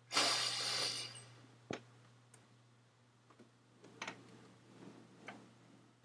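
A breathy rush of air close to the microphone in the first second, then one sharp click and a few faint clicks and taps.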